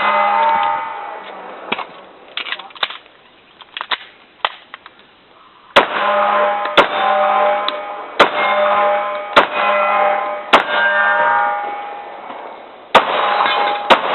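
Glock 26 pistol firing about a dozen shots at uneven intervals, some in quick pairs. Many shots are followed by a metallic ringing that lasts about a second.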